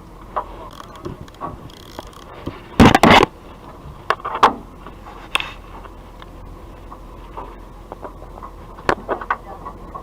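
Scattered knocks and clatter of handling on a fishing boat's deck, the loudest a quick cluster of heavy thuds about three seconds in, with a few sharp clicks near the end, over a steady hum.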